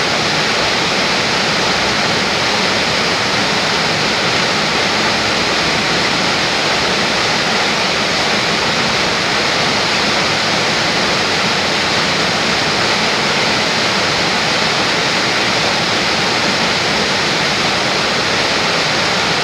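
White water rushing and churning between rocks in a stream or small waterfall: a loud, steady rush that does not change.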